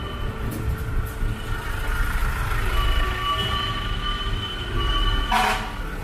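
Parked fire trucks' engines idling in a low, steady rumble, with a steady high-pitched whine over it that breaks off and returns, and a short hiss about five seconds in.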